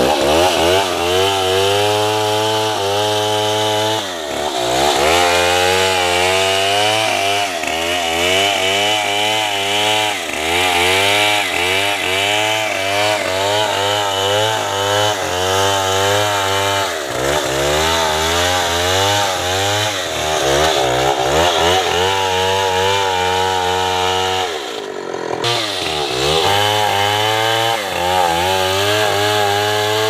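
Large two-stroke chainsaw cutting into a thick tree trunk, its engine held at high revs and wavering in pitch as it bogs and recovers under the load of the cut. Several times the revs drop and climb again, most deeply about 25 seconds in.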